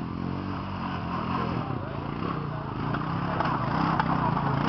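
ATV quad bike engine running under varying throttle, its pitch rising and falling as it is driven over rough ground, and getting louder near the end.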